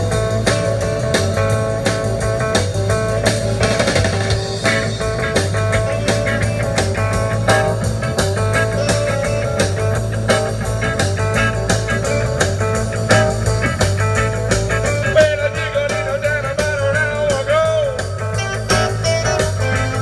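Rock music with guitars playing steadily. A wavering, bending lead line comes in about three quarters of the way through.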